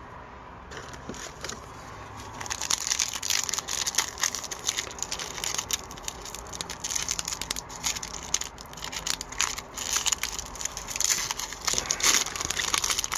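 Foil wrapper of an Upper Deck hockey card pack being crinkled and torn open by hand, an irregular crackling that starts about two seconds in and goes on with many small sharp crackles.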